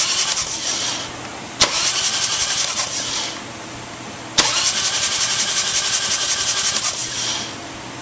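Harley-Davidson Twin Cam engine turned over by its electric starter with a spark plug out, so it spins freely without firing, in three short spells: one stops about a second in, then two more of about two and three seconds each start with a sharp click. The motor is being spun to centre the oil pump gears while the pump bolts are tightened.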